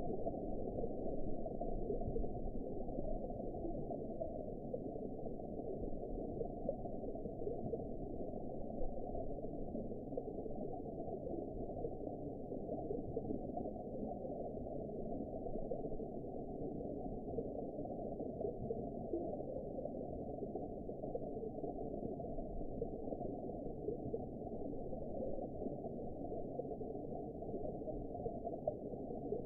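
Underwater ambience: a steady, muffled rush and gurgle of water, deep and dull, with no high sounds at all.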